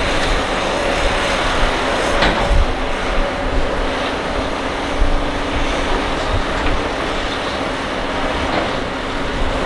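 Diesel engine of a Kobelco SK200 excavator running steadily at working revs, with a single clank about two seconds in.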